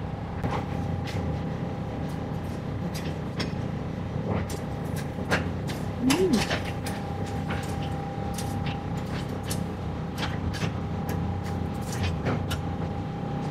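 Restaurant room tone: a steady low hum with a faint steady high tone, and light clicks and knocks scattered throughout.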